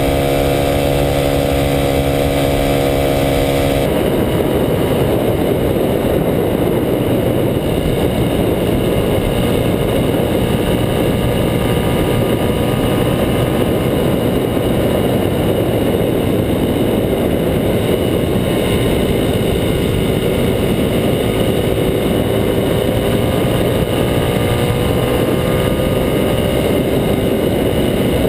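Kawasaki KLX250SF's single-cylinder engine through a Muzzy aftermarket exhaust, running steadily under way. About four seconds in, a heavy rush of wind and road noise largely covers the engine note, which comes through again later and rises slowly in pitch near the end.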